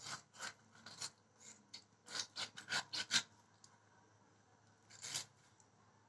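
A catfish's skin and flesh being sliced on a boti, a fixed upright curved blade, as the fish is pushed and pulled against the edge: short rasping strokes, a quick run of them about two to three seconds in and one more near the end.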